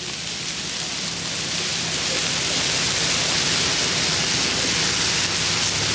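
Bacon and frozen corn sizzling steadily on a hot flat-top griddle, a dense, even hiss that swells slightly over the first couple of seconds and then holds.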